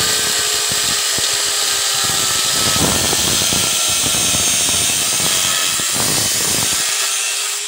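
Electric angle grinder running, its disc grinding against a brass wall-mixer connector fitting. The motor's whine sags under the load and rises again near the end as the disc comes off the work.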